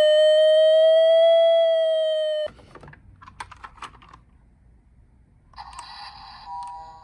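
Toy emergency vehicle's electronic siren holding one long wailing tone that rises slightly and falls back, then cuts off suddenly about two and a half seconds in. A few faint clicks and rattles follow, and near the end another toy's electronic tones start up.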